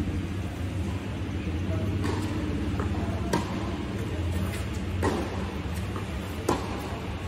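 Tennis rally on a hard court: the ball is struck by the rackets and bounces, giving a string of sharp pops, the loudest about every one and a half seconds, over a steady low hum.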